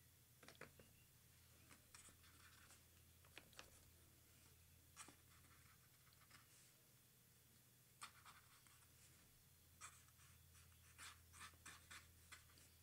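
Faint strokes of a brush pen drawn across paper, scratching in short, irregular bursts, with a cluster of quick strokes near the end, over a faint steady low hum.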